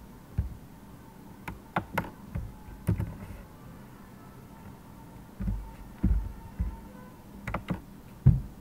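Computer keyboard keys and mouse buttons being pressed: about a dozen sharp, irregular taps and clicks, some with a dull low thump.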